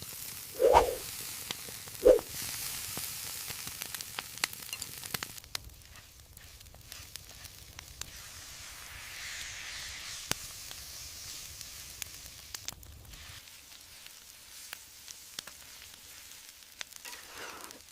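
Food sizzling and crackling in a hot pan, with two dull knocks in the first couple of seconds.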